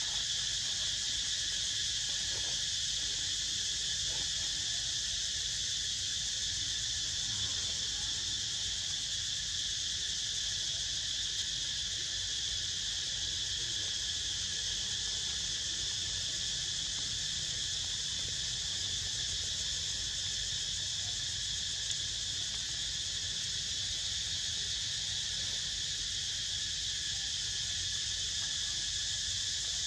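Steady chorus of insects, a high-pitched drone in several pitches that holds unchanged throughout, with a low rumble underneath.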